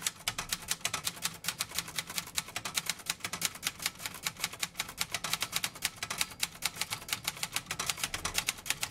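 Brother 200 manual typewriter being typed on at speed: a quick, even run of key strikes, about seven a second. The machine is typing cleanly, with no faults.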